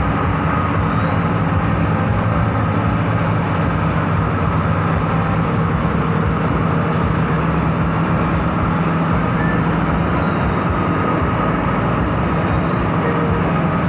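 Bus engine running steadily under way, a constant low drone mixed with road and tyre noise.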